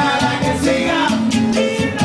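Cuban salsa band playing, with a bass line under pitched instruments and regular percussion strikes.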